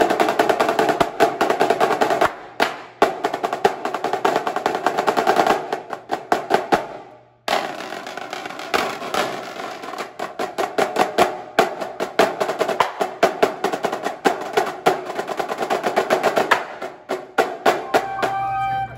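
A drumline of Pearl marching snare drums playing together: fast rolls and rudiment patterns of rapid stick strokes. The playing breaks off about seven seconds in and starts again, and a few held flute notes come in near the end.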